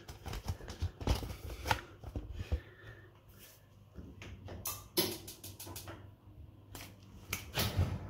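A series of clicks and knocks from handling a gas oven: its control knob being turned, with a tight cluster of clicks about five seconds in, and louder knocks near the end as the oven door is pulled open.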